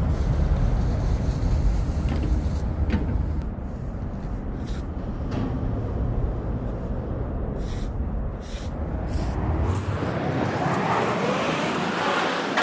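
Low rumble of city traffic that cuts off suddenly about ten seconds in, followed by a louder rushing noise building near the end.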